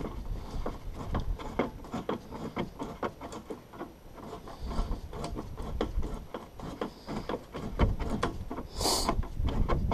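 Hand tools and parts clicking, tapping and rubbing against a utility vehicle's plastic fuel tank and its mounts as the tank is fitted, in an irregular run of small knocks with a short louder rush of sound near the end.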